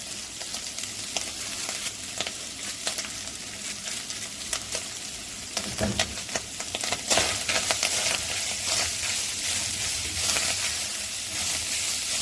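Ground beef with mint and spices frying and crackling in a pan while it is stirred. The sizzle gets louder about seven seconds in.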